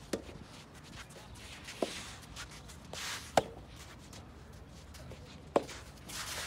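Soft tennis rally: a soft rubber ball struck back and forth by rackets, four sharp knocks about every two seconds, the two later hits the loudest.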